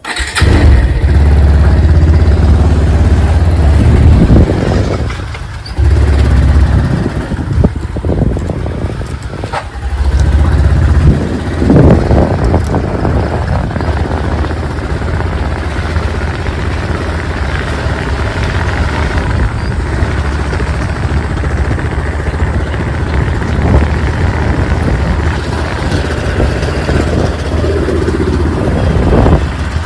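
Motorcycle riding along, its engine running with a heavy low rumble throughout, easing off briefly twice in the first ten seconds.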